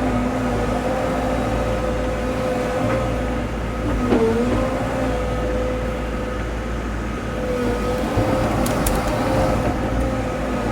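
Diesel engine of a CAT 313 excavator running steadily while digging, its pitch sagging briefly under load about four seconds in and again near eight seconds.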